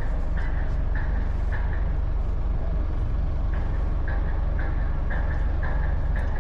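A motor cruiser's Volvo Penta inboard engine running steadily underway, a constant low drone.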